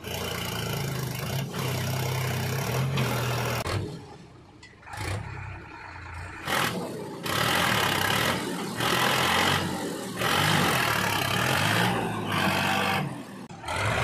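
Sonalika DI 42 tractor's diesel engine working hard. It holds a steady pitch for the first few seconds, then runs louder and rougher in stretches as it hauls a loaded trailer through mud. The sound changes abruptly several times.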